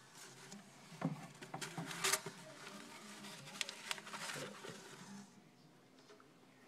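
Irregular rustling and scratchy clicks on the newspaper lining of a bearded dragon's tank, busiest in the middle and dying down near the end.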